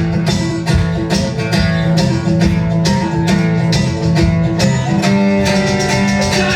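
A band playing an instrumental passage between sung lines: plucked guitar over bass with a steady beat.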